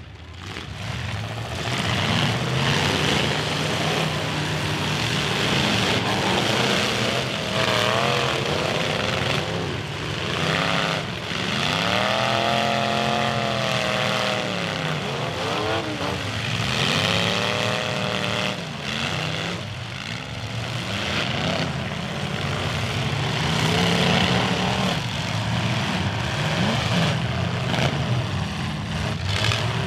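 Several full-size demolition derby cars' engines revving hard as the cars drive and ram one another, the pitch swinging up and down repeatedly in the middle stretch, with occasional knocks of car bodies hitting.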